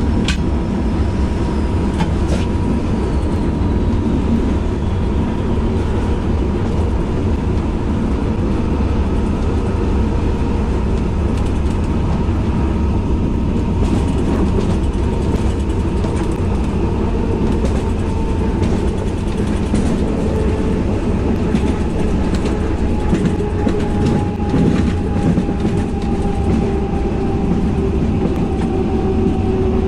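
Inside the cab of an SNCF BB 67400 diesel-electric locomotive on the move: a steady loud rumble of engine and wheels on the rails, with a few sharp clicks. A whine in the second half slowly drops in pitch.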